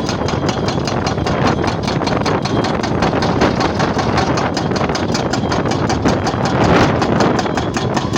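Jackhammer running continuously, its bit hammering in a rapid, even rhythm of blows.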